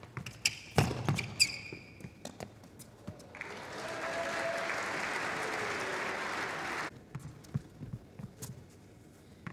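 Tennis ball struck back and forth with a shoe squeak on an indoor hard court. Then audience applause lasts about three and a half seconds and cuts off suddenly, followed by a few faint ball strikes.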